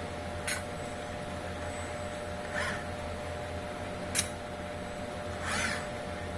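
Automated robot-arm and MPS processing-station workcell running: a steady electrical hum with two sharp clicks and two short hisses of air, typical of pneumatic valves and cylinders working.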